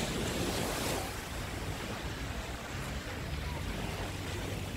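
Small waves breaking and washing up on a sandy beach, swelling louder about a second in, with wind rumbling on the microphone.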